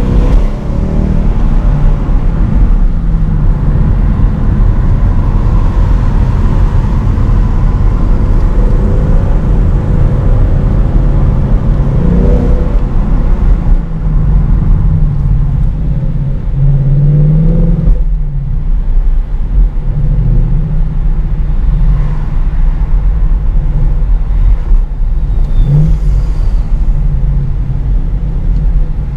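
Ford Mustang GT's 5.0-litre V8 heard from inside the cabin, running loud under way, with its pitch rising under acceleration about twelve, seventeen and twenty-six seconds in.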